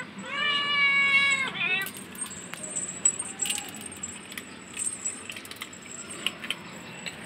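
A kitten gives one long, drawn-out meow lasting about a second and a half, followed by faint scattered clicks.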